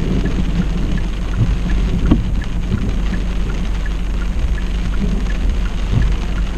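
Rain falling on a car's windscreen and body during a thunderstorm, a steady hiss with scattered faint ticks of drops over a constant low rumble.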